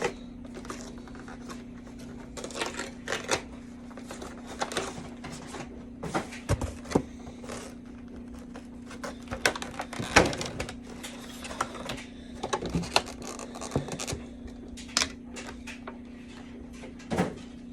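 Hands opening a cardboard Pokémon card collection box: irregular clicks, taps and rustles of cardboard and plastic packaging being handled, over a steady low hum.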